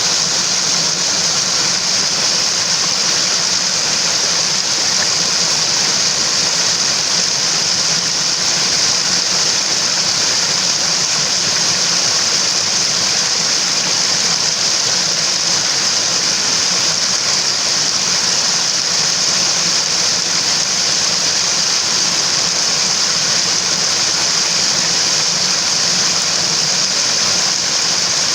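Mountain water rushing steadily over rocks: an even, unbroken hiss with no change in level.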